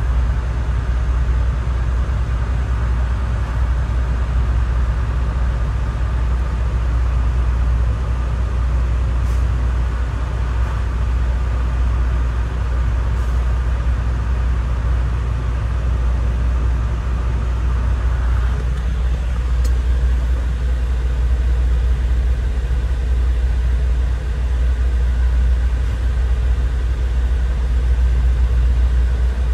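Diesel semi-truck engine running with a steady low rumble.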